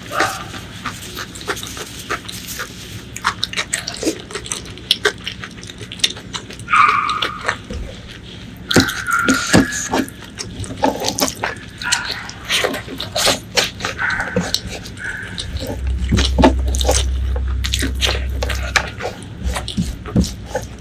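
Close-miked eating sounds: wet chewing and lip-smacking of rice and spicy curry, with sticky squelches as bare fingers press and gather curry-soaked rice on a wooden plate.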